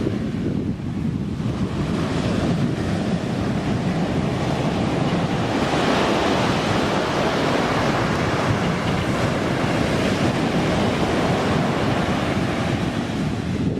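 Surf breaking and washing up on a sandy beach, a steady wash of noise that swells from about five seconds in, with wind buffeting the microphone.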